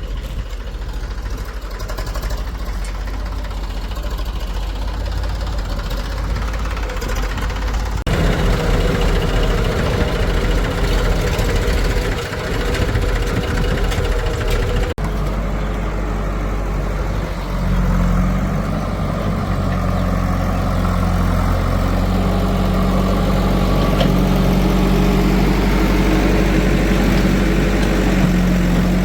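Diesel engine of heavy farm machinery running steadily, growing louder about 8 seconds in and settling into a steady hum later on.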